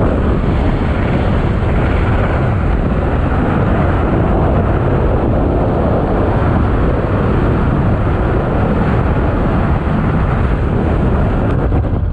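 Steady rush of wind and road noise from a car driving at speed, heaviest in the low end.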